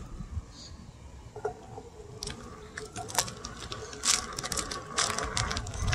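Onewheel GT's electric hub motor giving a faint steady whine as the board starts rolling. Its tyre crackles and ticks over gritty asphalt, growing busier from about two seconds in.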